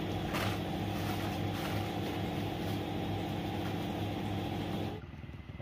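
An engine running steadily at an even, unchanging pitch, which stops abruptly about five seconds in.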